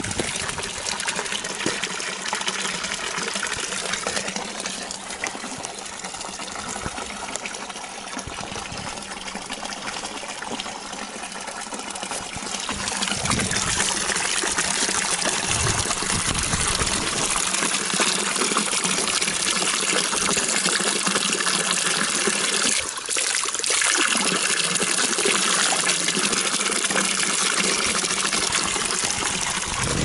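Water pouring from a bamboo spout and splashing into a stone basin, a steady gush that gets louder about halfway through.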